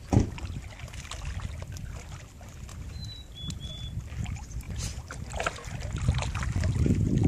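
Wind buffeting the microphone over small splashes and sloshing of lake water around a golden retriever wading at the shore, with a single sharp knock right at the start. The wind rumble grows stronger near the end.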